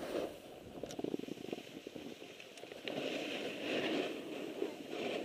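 Hiss and scrape of sliding downhill over snow, with wind rushing on the microphone. A rattly patch of chatter over the snow comes about a second in.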